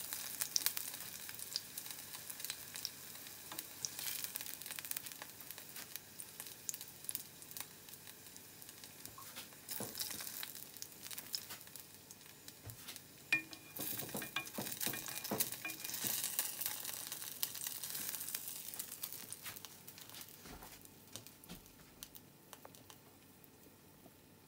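Hot oil sizzling and crackling in a frying pan with fried vegetable residue, with one sharp tap about halfway through. The crackle thins out and dies away over the last few seconds.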